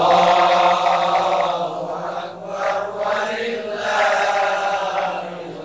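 Islamic religious chanting in Arabic: voice intoning in long, melodic held notes that rise and fall slowly.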